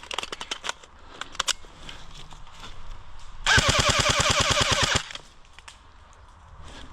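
Airsoft guns firing: a few scattered single shots, then a loud full-auto burst of about a second and a half, roughly a dozen shots a second, from an airsoft rifle.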